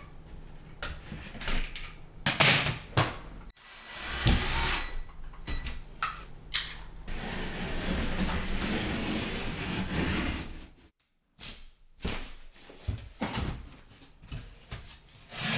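Drywall being cut out of a wall: a few knocks and clatters, then several seconds of steady cutting noise, followed by more short knocks.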